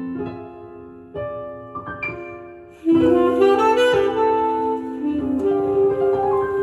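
Instrumental fill in a jazz ballad played through Pioneer S-955III speakers from a Sansui AU-9500 amplifier, between sung lines. Soft piano notes come first, then about three seconds in a louder, held melody line enters over the piano.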